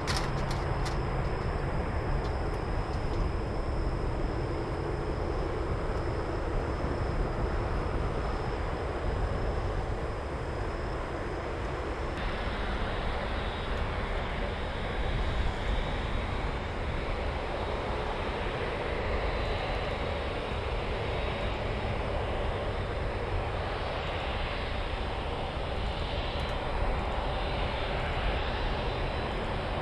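Jet engines of a Boeing 747-8F freighter, its four GEnx turbofans, running steadily; the sound turns brighter and hissier about twelve seconds in.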